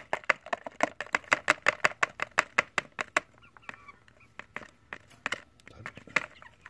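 A fast, even run of short knocks, about five a second, as a bowl of chopped cabbage scraps is shaken and tapped over a plastic tray to empty it. After about three seconds the knocks thin out to a few scattered ones.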